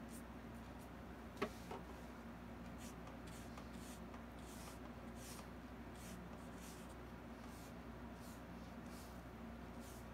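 Paintbrush strokes on canvas, a soft scratchy brushing repeated at irregular intervals, with one sharp click about a second and a half in. A steady low hum of room tone lies underneath.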